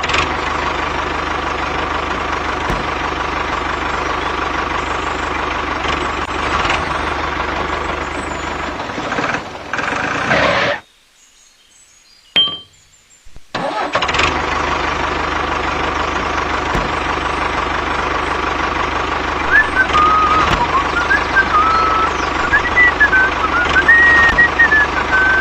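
A vehicle engine running steadily. It cuts out about eleven seconds in and starts up again a couple of seconds later. From about twenty seconds in, a wavering high tone sounds over it.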